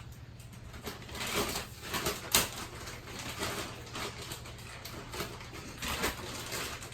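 Rustling and knocking of a vacuum-packed mattress in its packaging being handled, with a sharp click about two and a half seconds in.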